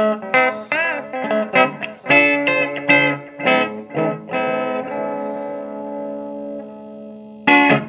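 Electric guitar played through a custom-built Rebote 2.5 delay pedal and amp: a run of picked single notes with string bends, then one note left ringing for about three seconds, and a loud strummed chord near the end.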